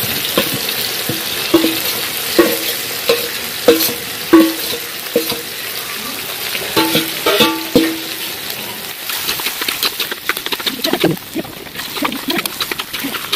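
Meat hitting a hot oiled iron wok and sizzling, with repeated ringing metallic clanks as the stainless-steel bowl it is tipped from knocks against the wok. From about nine seconds in, a spatula stirs and scrapes the pan, with dense sizzling and crackling.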